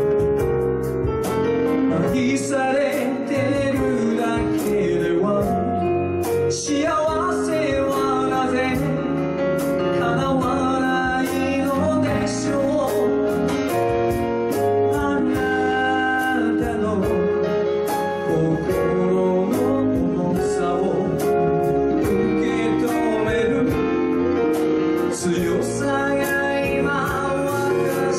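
Live pop ballad: a male vocalist singing over a small band of guitar, bass, keyboards and percussion, with frequent light cymbal strikes.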